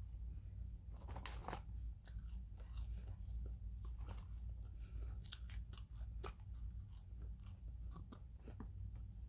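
Close-up chewing and mouth sounds of someone eating McDonald's french fries, with many small wet clicks and smacks and the odd crunch. A steady low hum sits underneath.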